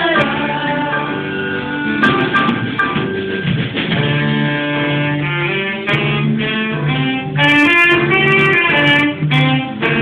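Live band playing a song, with saxophone and electric guitar over a steady bass line.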